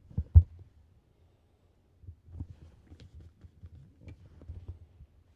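Handling noise as a CD and its packaging are handled: two dull thumps in the first half second, then scattered light knocks and rustles.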